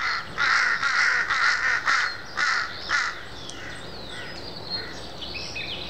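Jungle crows cawing: a quick run of about seven caws in the first three seconds, then fainter calls.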